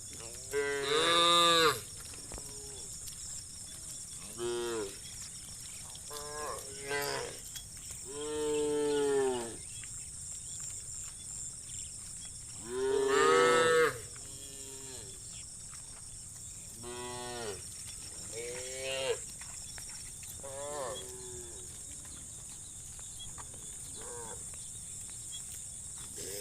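A herd of cows mooing: about ten separate moos, each rising and then falling in pitch, some loud and some fainter, the loudest about a second in and about thirteen seconds in. A steady high-pitched hiss runs underneath.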